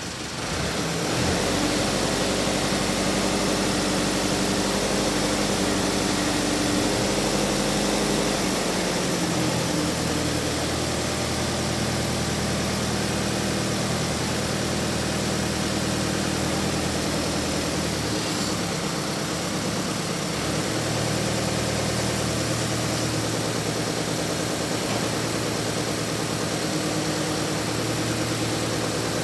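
Kubota M8580 tractor's four-cylinder diesel engine running steadily while the hydraulic front loader and grapple bucket are raised and curled. Its note changes about nine seconds in, and again shortly before twenty seconds.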